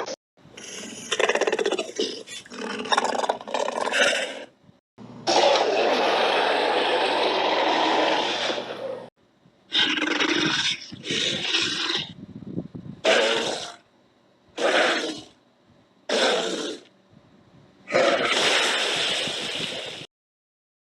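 A string of prehistoric-animal sound effects, roars and grunts, cut one after another with short gaps between them. There are long roars from about five to nine seconds in and again near the end.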